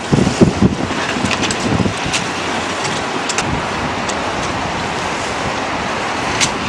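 Strong wind buffeting the microphone, heaviest in the first second, then a steady rush of wind and water with a few sharp ticks.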